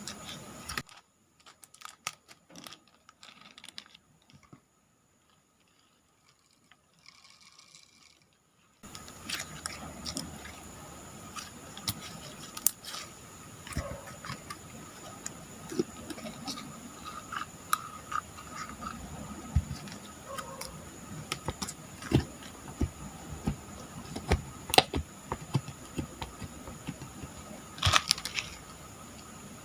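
Slime being squeezed, poked and stretched by hand, giving irregular sharp clicks and crackly pops as air pockets burst. The clicking is sparse and faint for the first several seconds, then comes thick and steady from about nine seconds in.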